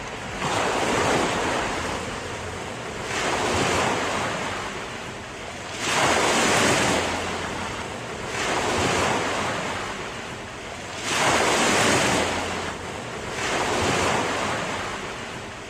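Ocean surf: waves swelling and washing back in a slow, even rhythm, one about every two and a half seconds.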